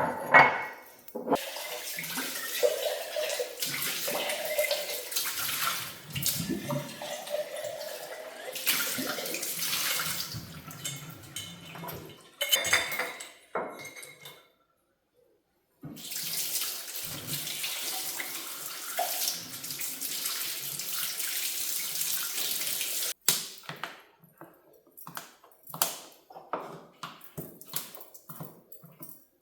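Tap water running into a sink, stopping for a moment and then running again until it is shut off suddenly; after that come several light knocks and clicks.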